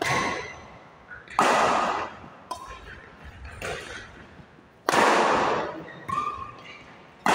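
Badminton rally: rackets striking the shuttlecock back and forth, sharp hits about once a second, the loudest from the near side of the court, each echoing in the hall.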